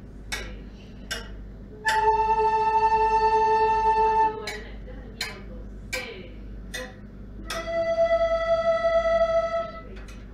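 Children's school wind ensemble playing: a run of short, sharp notes, a long held note about two seconds in, more short notes, then a second, higher held note that stops shortly before the end.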